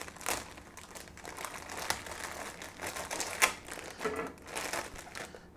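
Plastic produce bag crinkling and rustling as vegetables are handled, with a few sharp taps in between, the loudest about three and a half seconds in.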